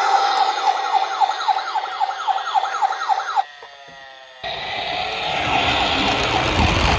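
Toy ambulance's electronic siren, a quick rising yelp repeating about four times a second. About three and a half seconds in it drops away briefly, then carries on more faintly under a rushing noise.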